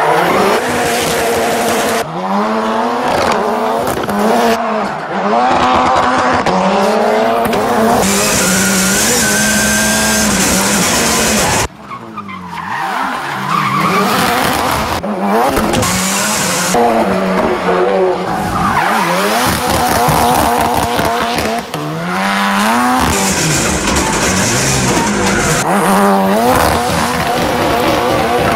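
Highly modified four-wheel-drive Ford Fiesta rally car drifting: the engine revs hard up and down over and over while the tyres squeal and skid. There is a sudden brief dip in loudness near the middle.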